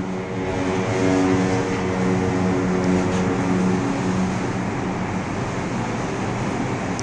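Steady rushing wind and water noise with a low pitched engine hum from the vessel, the hum fading out about halfway through.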